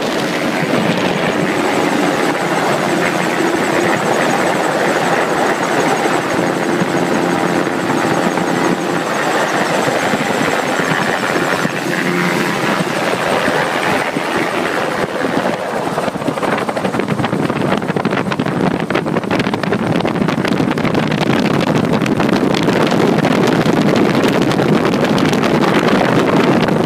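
Gyrocopter in flight: its engine and propeller run steadily under heavy wind rush on the microphone. The noise turns rougher and a little louder in the second half as the aircraft comes down low over the grass.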